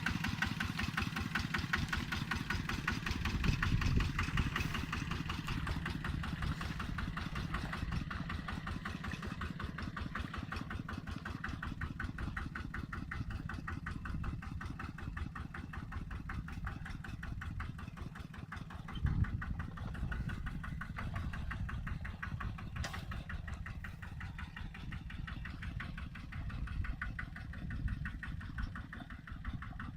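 A small engine running steadily at a fast, even beat, with a couple of brief louder surges.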